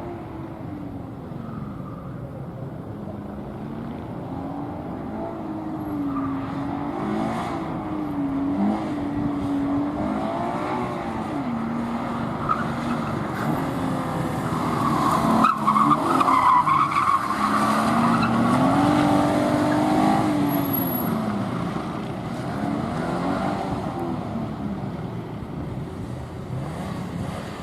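A gymkhana car running the course, its engine revving up and falling back again and again as it accelerates out of and brakes into turns. It gets louder through the middle, with a brief tyre squeal there.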